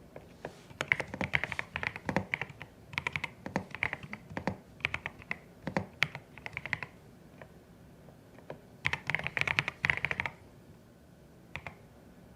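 Typing on a CIDOO ABM081 Stellar mechanical keyboard: quick runs of keystrokes for most of the first seven seconds, a pause, another fast run about nine seconds in, then a single keystroke near the end.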